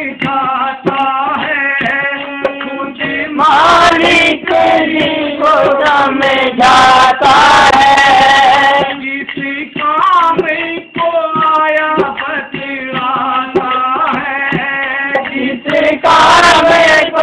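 Devotional bhajan singing accompanied by a harmonium and a dholak hand drum, the drum struck in a steady rhythm under the held harmonium notes. The music swells louder from about three and a half to nine seconds in, and again near the end.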